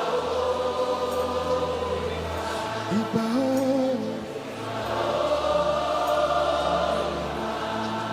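Live gospel worship music: a choir singing long held notes over sustained instrumental chords and a low bass line that changes note twice.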